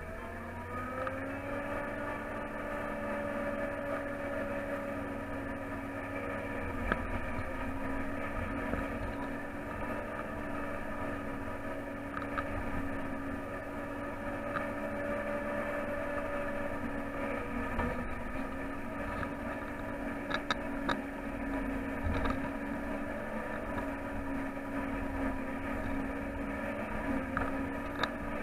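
John Deere 8800i self-propelled forage harvester running under load, heard from inside its cab: a steady engine and machine drone whose pitch rises over the first second or so and then holds. A few short clicks stand out above it.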